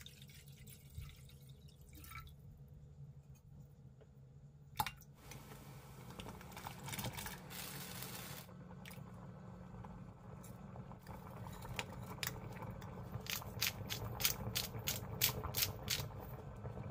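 Water pouring and dripping into a cast iron pot, then soup boiling and bubbling in it, with a quick run of sharp ticks near the end.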